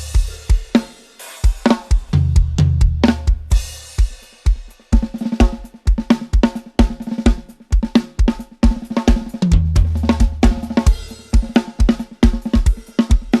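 A budget-priced drum kit played solo and recorded multitrack, then mixed: kick, snare, hi-hat and cymbals. Low, ringing drum rolls come about two seconds in and again near ten seconds, and from about five seconds it settles into a dense, driving beat.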